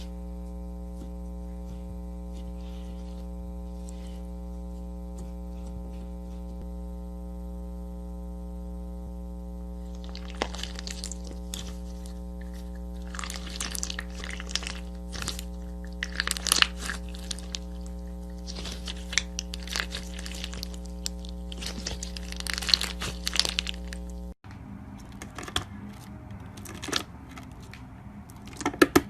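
Slime being squeezed and pressed, giving irregular crackles and pops from about ten seconds in, over a steady electrical hum that cuts off abruptly about 24 seconds in.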